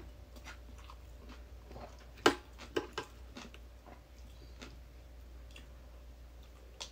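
A person chewing a mouthful of pounded cucumber salad, with scattered short crunches and clicks, the sharpest about two seconds in.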